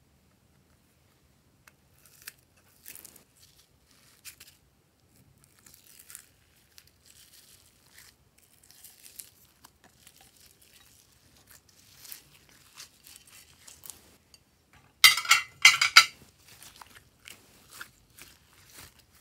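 Sticky glitter slime being pulled, stretched and pressed by hands, making scattered short clicks and crackles that begin after about two seconds, with a much louder burst of crackling about three-quarters of the way through.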